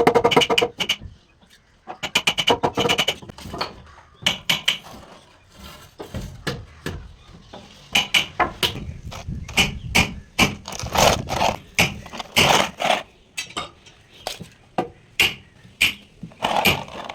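Irregular sharp knocks and taps, some in quick runs, with the loudest cluster about two-thirds of the way through.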